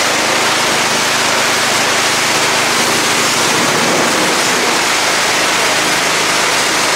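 Pressure washer jet spraying hard onto a wet concrete floor, a loud steady hiss of water, with the washer's pump and motor humming steadily underneath.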